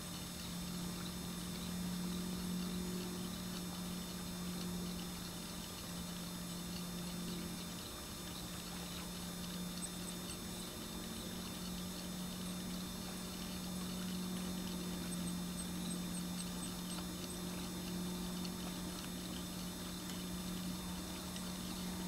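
Steady rushing of flowing river water, with a low steady hum underneath.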